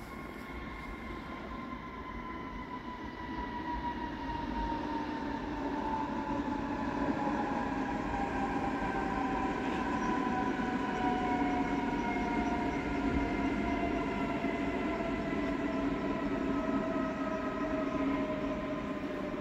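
Electric train coming in, its motor whine slowly falling in pitch as it slows, over the rolling rumble of the wheels. The sound grows louder a few seconds in and then holds.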